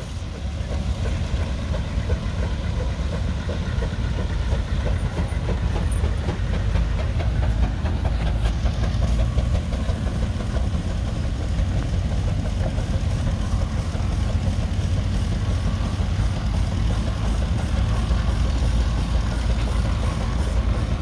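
Steam traction engine working under load pulling an eight-bottom plow, its exhaust chuffing in a steady rhythm from the stack.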